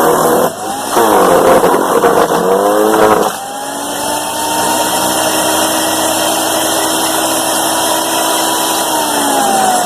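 SunJoe 15-amp electric wood chipper chewing through a thick branch for about three seconds, its motor pitch dipping under the load, then running free at a steady pitch. Near the end the motor winds down with falling pitch.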